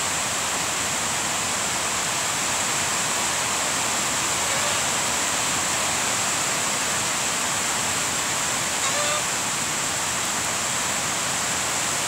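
Steady rain falling on trees and grass, a constant even hiss with no let-up.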